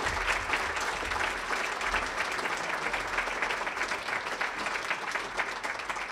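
Audience applauding: dense, steady clapping from many hands, slowly fading toward the end.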